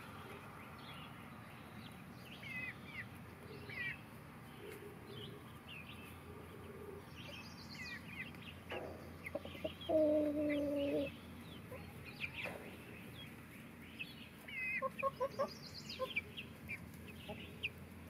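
Small flock of chickens making soft calls: scattered high peeps and chirps throughout, a quick run of short clucks about fifteen seconds in. The loudest sound is one steady tone about a second long, about ten seconds in.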